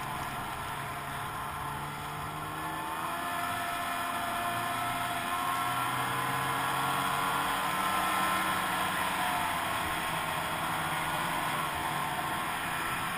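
Snowmobile engine running at speed along a trail, its pitch rising gently in the middle and easing off again near the end, over a steady rushing noise.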